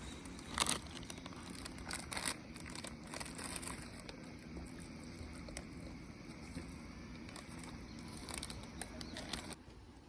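Rustling and crinkling with scattered clicks and knocks, as of things being handled, over a steady low hum; it all cuts off abruptly near the end.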